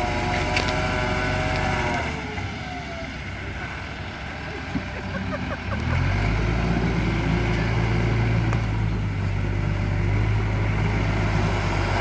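Diesel engine of a loaded Ashok Leyland tipper lorry revving as the lorry tries to drive out of mud. The engine note falls and eases off about two seconds in, then picks up again about six seconds in and holds a steady, loud high rev.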